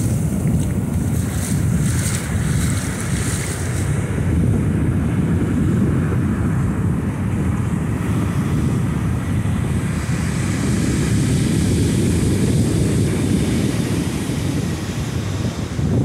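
Wind buffeting the microphone with a steady low rumble, over the wash of surf running up the sand; the hiss of the foam is brightest in the first few seconds.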